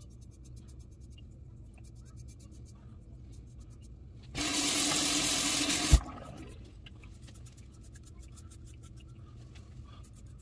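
Double-edge safety razor scraping in short, repeated strokes across a lathered scalp. About four seconds in, a tap runs loudly for under two seconds to rinse the razor and ends with a sharp knock, then the faint scraping strokes resume.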